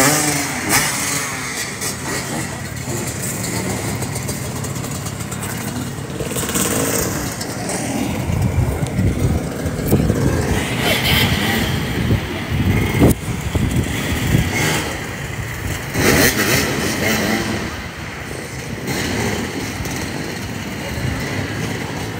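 Several motorcycle engines running and revving up and down as the bikes ride around, the engine pitch rising and falling repeatedly.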